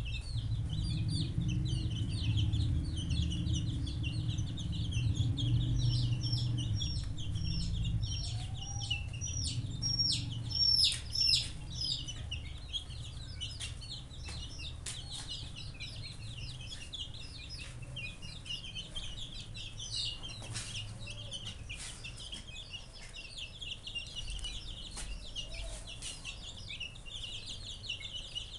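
A flock of young chicks peeping steadily. About six to eleven seconds in, a run of louder, falling peeps stands out. A low rumble sits under the first half and fades away.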